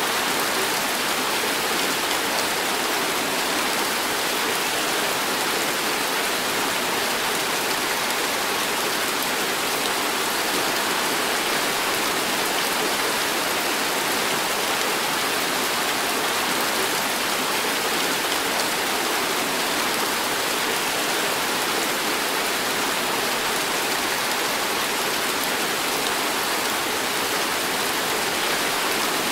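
Heavy tropical rain pouring steadily: a dense, even hiss of countless drops with no breaks or changes.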